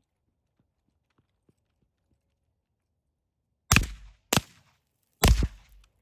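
Suppressed FN FS2000 5.56 mm bullpup rifle firing three shots, the first two about two-thirds of a second apart and the third about a second later, each a sharp crack with a short ringing tail.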